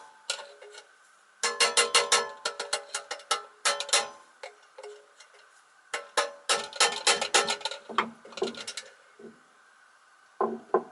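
Rapid metallic tapping in two long runs and a short one near the end, each strike ringing briefly: a screwdriver being used to tamp parts on a Henry vacuum cleaner's motor to knock them loose.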